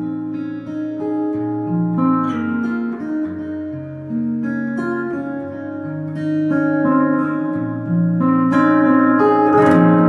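Gwood GMR-C steel-string acoustic guitar, capoed and played fingerstyle, amplified through a Sunrise S2+ soundhole pickup and K&K Pure Mini into a Fishman Loudbox Mini amp. Picked melody notes ring over a moving bass line, growing louder near the end with a strummed chord.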